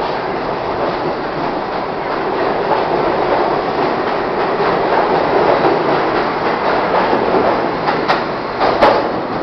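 Budd-built R-32 New York subway train running past the platform and pulling away, its steel wheels clattering on the rails in a loud, steady rumble. Two sharp clacks come near the end as the last car goes by.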